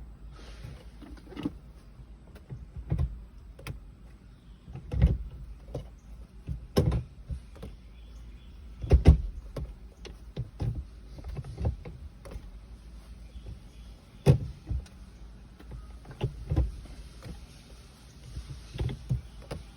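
Irregular mechanical clunks and clicks, a few of them louder knocks, over a low steady rumble: typical of a freshly installed RTD chassis-mount short shifter in a 1995 BMW M3 being moved through the gates.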